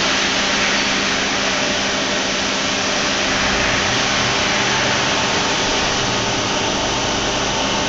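Hartford HEP-2150 CNC bridge mill running: a steady whirring hiss with a faint steady hum underneath.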